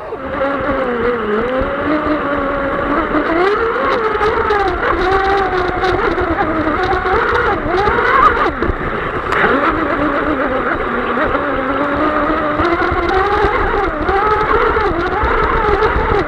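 RC F1 tunnel-hull boat heard from on board at speed: its 5S LiPo-powered electric motor and propeller whine, the pitch rising and falling continuously, over a low rush of water and wind.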